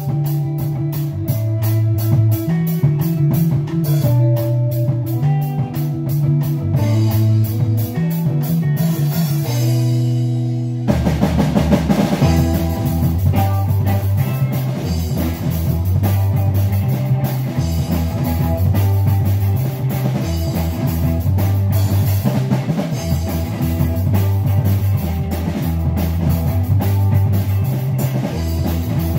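Live rock band with electric bass, guitars and drum kit playing an instrumental passage: a bass-and-guitar riff over a fast, steady cymbal beat. About eleven seconds in the band swells and crashes into a heavier, fuller section.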